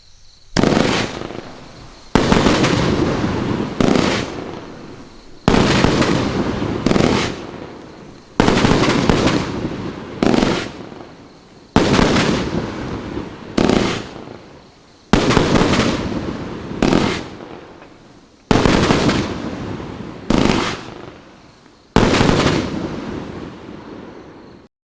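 42-shot 30 mm consumer fireworks cake firing: about fourteen loud sharp reports, roughly one every one and a half seconds, each trailing off over a second or so before the next, and cutting off abruptly near the end.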